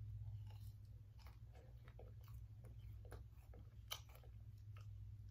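A person chewing french fries close to the microphone: quiet crunches and wet mouth clicks, with a sharper crunch about four seconds in. A steady low hum lies underneath.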